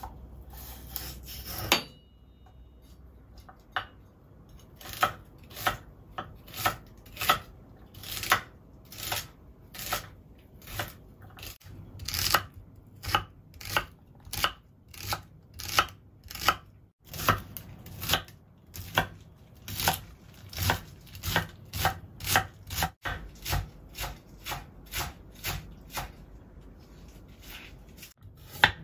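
Kitchen knife chopping celery on a wooden cutting board: sharp, evenly spaced strokes of the blade through the stalks onto the board, about one and a half a second.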